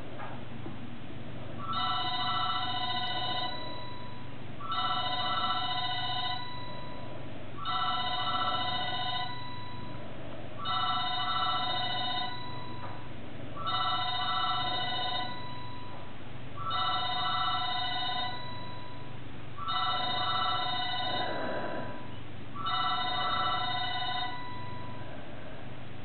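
Telephone ringing with an electronic ring of several steady tones, eight rings about three seconds apart, starting about two seconds in.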